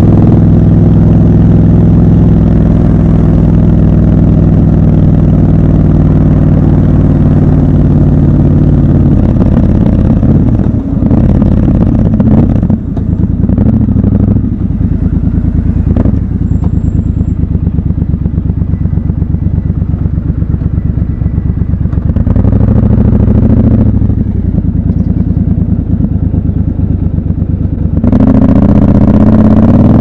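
Triumph Scrambler 1200 XC's parallel-twin engine heard from the rider's seat: a steady cruising note at first, dropping after about nine seconds to low revs while rolling slowly through stopped traffic, then pulling away under throttle near the end with a rising note.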